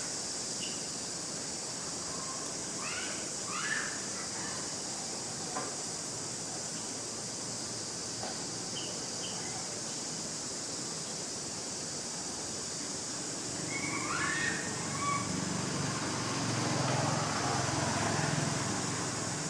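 Steady high insect drone with a few short squeaky calls, the first about three seconds in and a cluster about two-thirds through, over a low hum that grows louder near the end.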